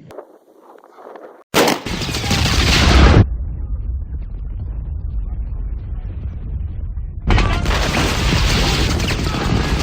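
Loud, dense gunfire and booms in two long stretches, joined by a quieter rumble, cutting off suddenly near the end.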